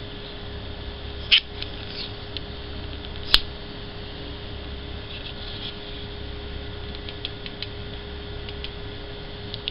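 Sharp clicks, two louder ones about a second and three seconds in, then a scatter of faint ticks, from a small aluminium-bodied extendible LED torch being handled and turned in the hand, over a steady low hum and hiss.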